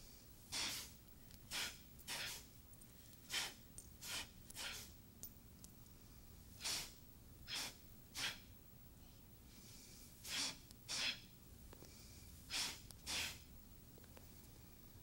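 Sharp, forceful breaths timed to the movements of a Tensegrity magical-pass sequence: about a dozen short, hissing puffs, several coming in quick pairs, over a quiet room.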